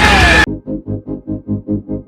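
Background music: a loud, dense passage cuts off abruptly about half a second in. A pulsing electronic keyboard pattern follows, about six beats a second.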